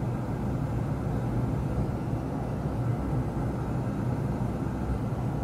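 Steady low rumble of a Boeing 777 simulator's engine and runway-roll sound as the aircraft decelerates after a rejected takeoff.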